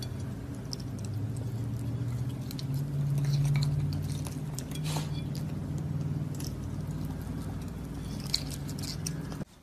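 A raccoon pawing at and eating from a dessert on a ceramic plate: scattered small clicks and clinks against the plate, more of them near the end, over a low steady hum.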